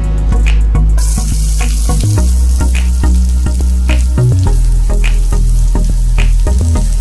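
Chopped red onion and dried red chillies landing in hot oil in a pan and sizzling as they begin to fry; the sizzle starts about a second in and stays steady.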